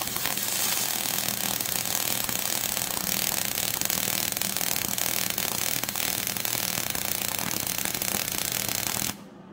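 MIG welding arc on aluminum from a Miller Spoolmate 100 spool gun, 4043 wire under pure argon: a steady, loud crackling hiss as the bead is run, cutting off about nine seconds in when the trigger is released.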